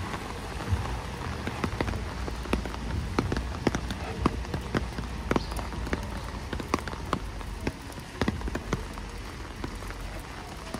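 Steady rain falling on a wet street, with many sharp, irregular raindrop taps close by.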